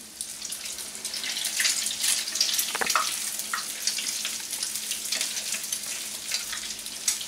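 Egg-coated bread slices sizzling and crackling in hot frying oil in a pan. A short metallic clink of the turning utensil against the pan just before three seconds in.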